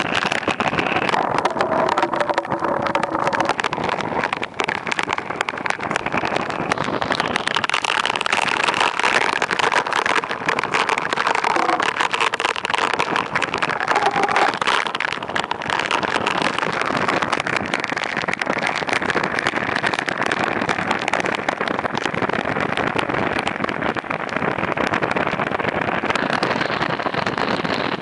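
Steady, unbroken rush of storm wind and rain heard from a moving car, with tyre noise on the wet road.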